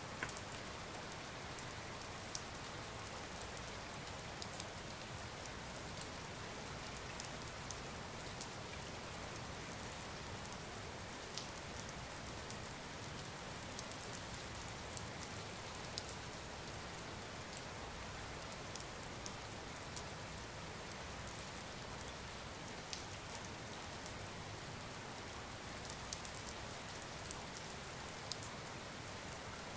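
Steady rain falling on the broad leaves of lotus plants: an even hiss, with many single drops ticking sharply on the leaves at irregular moments.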